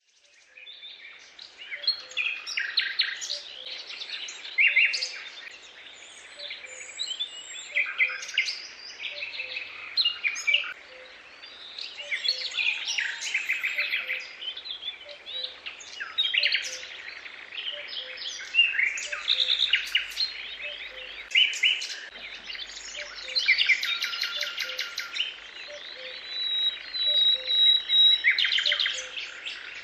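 Birds singing and chirping: several overlapping songs of quick trills and short calls, with a faint low note repeating evenly underneath.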